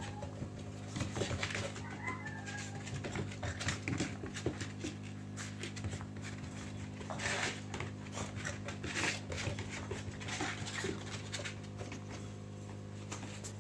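Dogs playing with a cockapoo puppy: scuffling and scratching, with many short clicks and a louder, noisy burst about seven seconds in.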